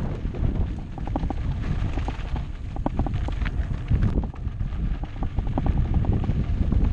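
Wind rumbling on an action camera's microphone while a mountain bike descends a rough, bumpy track, its frame and parts rattling with many quick clicks and knocks from the bumps.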